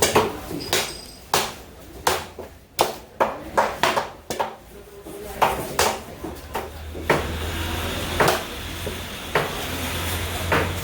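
A knife or cleaver striking fish on a cutting block in a string of irregular sharp chops, some in quick runs and some a second or more apart. A steady low hum rises behind them from about two-thirds of the way through.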